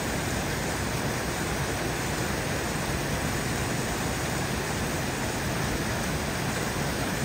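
Steady rushing of a creek's flowing water, an even hiss that does not change.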